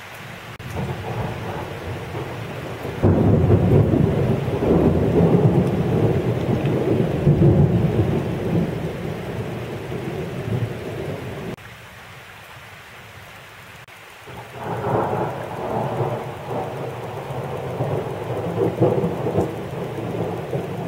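Thunder rumbling in a thunderstorm, with rain hissing underneath. A loud, long roll swells about three seconds in and breaks off suddenly near the middle, and after a few quieter seconds a second, rolling peal rises and continues.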